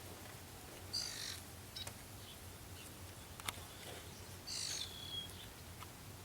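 Two short, high bird calls in the background, one about a second in and another about three and a half seconds later, with a few faint taps between them.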